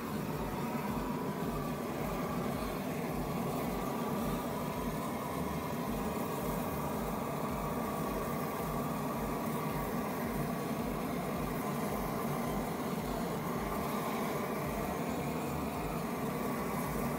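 Stick welding a mild steel plate to a cast iron brake drum with nickel-iron 55 rod (ENiFe-CI), the arc running steadily, over a steady machine hum.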